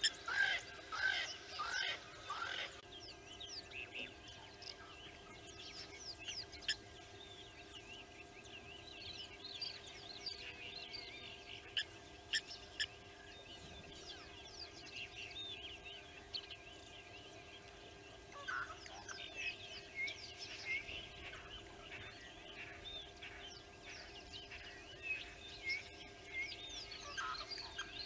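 Many birds chirping and calling over one another in a busy, overlapping chorus. The calls are loudest in the first few seconds, again about two-thirds of the way through, and near the end, over a faint steady hum.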